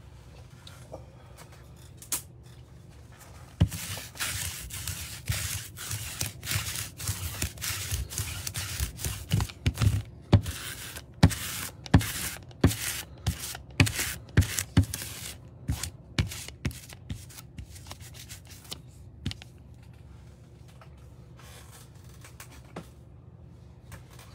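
Sticky lint roller rolled back and forth over a cloth playmat, a run of rasping, crackly strokes, about two a second, for about thirteen seconds, trailing off into a few fainter ones.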